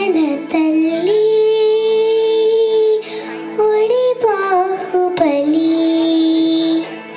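A child singing into a microphone over a backing track: long held notes joined by short gliding turns in pitch.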